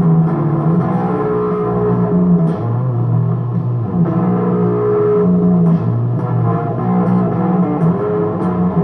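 Electric guitar playing a slow blues, with sustained low notes that change about once a second.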